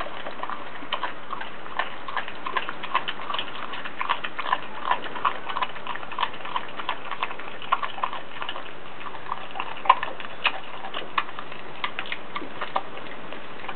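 Australian cattle dog chewing and licking a lump of raw green tripe: wet, irregular smacks and clicks of the jaws and tongue, several a second, over a steady background hiss.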